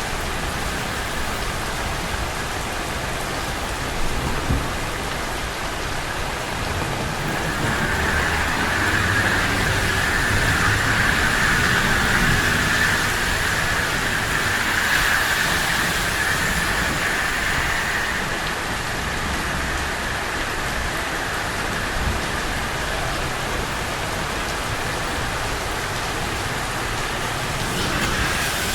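Steady rain on a city street, a continuous hiss that swells somewhat for several seconds in the middle.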